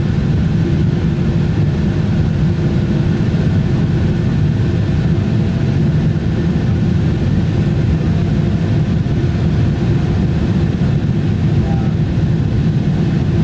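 Steady low drone of a Boeing 747-8's GEnx-2B turbofan engines and the rush of air, heard inside the passenger cabin beside the wing, in flight shortly after takeoff.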